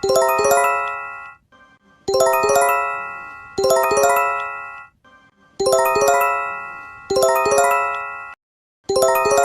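Electronic emergency-alert chime of a Japanese-style EAS alarm. Bell-like note clusters are struck in pairs, each ringing out and fading, and the pattern repeats with short silences between the pairs.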